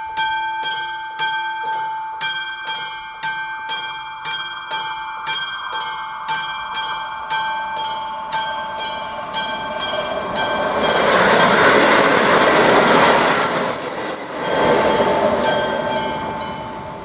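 Level-crossing warning bell of an AŽD 71 signal striking about twice a second. About ten seconds in, a passenger train rolls over the crossing and is loudest for a few seconds, with a high wheel squeal, then fades as the bell stops near the end.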